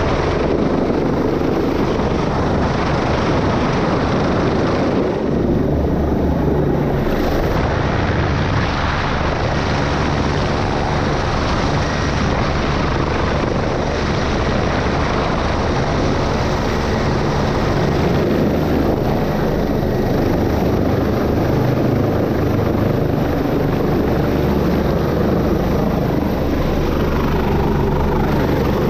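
Rescue helicopter's rotor and turbine engines running steadily, heard from inside the cabin with the side door open.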